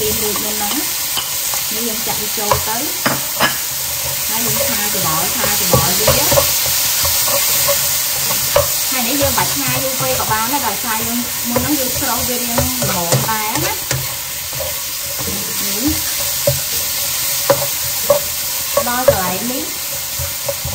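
Pork, mushrooms and peppers frying with a steady sizzle in a nonstick wok, as the vegetables are tipped in at the start and then stirred with a spatula that scrapes, squeaks and taps against the pan.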